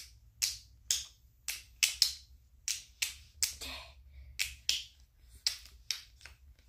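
A series of sharp clicks or taps from a small hand-held object, about two a second and unevenly spaced.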